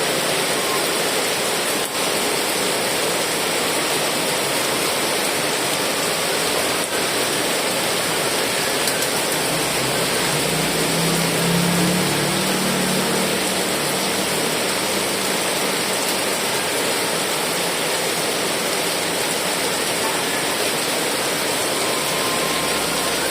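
Heavy rain falling in a steady, even hiss. A low hum swells briefly near the middle.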